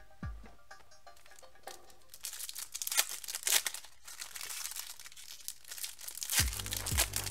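Trading-card pack wrappers crinkling and tearing as packs are ripped open by hand, a run of crackles from about two seconds in. Background music with a regular bass beat comes in near the end.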